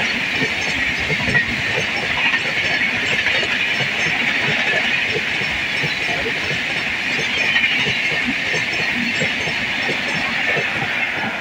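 Express train's LHB passenger coaches rolling past at speed: a steady rushing hiss of steel wheels on rail, with scattered clacks as the wheels cross rail joints.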